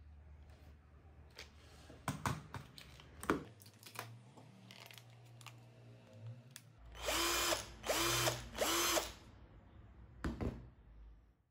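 HiLDA 21V cordless drill's motor run three times in quick short bursts on the trigger, each spinning up with a rising whine and stopping, now working on a newly replaced trigger switch and battery BMS. Clicks and knocks of the drill being handled come before the runs and again near the end.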